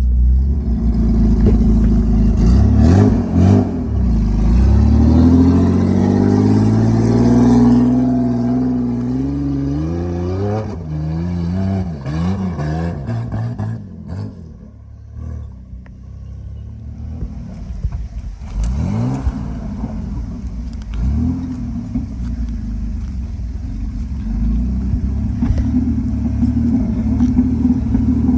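Straight-piped RB30 straight-six in a Nissan Patrol, with no exhaust, revving hard under load. The engine note climbs over several seconds, rises and falls a few times, drops away briefly about halfway through, then climbs again and holds a steady higher note.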